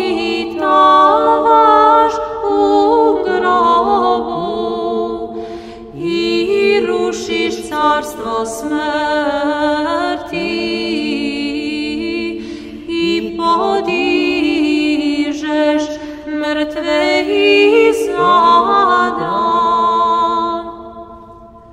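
An unaccompanied choir singing Orthodox chant: phrases of held chords, with short breaks between phrases, fading out near the end.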